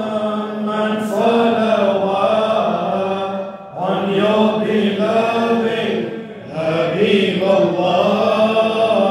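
Men's voices chanting a devotional salawat, blessings on the Prophet, in drawn-out melodic phrases with no instruments. There are two short pauses for breath, about a third and two-thirds of the way in.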